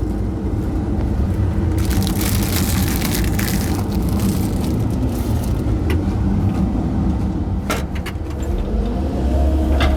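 Mini excavator engine running steadily under hydraulic load, with a stretch of scraping and crunching as the bucket drags through wood and trash about two seconds in. A few sharp knocks follow, and near the end a rising whine settles into a steady tone as the engine and hydraulics load up.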